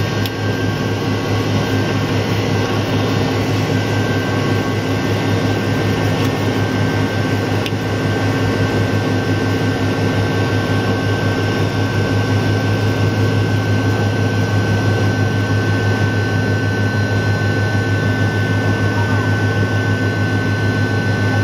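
Cabin noise beside the rear-mounted engine of a McDonnell Douglas MD-88: a steady low hum with a thin high whine on top, the engines at low thrust as the jet taxis slowly onto the runway.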